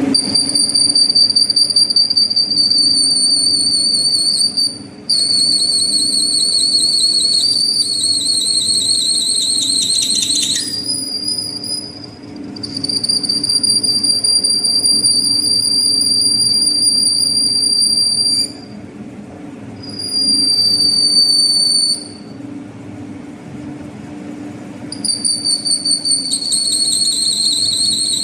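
Lathe tool bit squealing as it cuts across the face of a metal flange: a loud, high-pitched squeal that breaks off and resumes several times, its pitch wavering for a few seconds near the middle, over the steady hum of the running lathe.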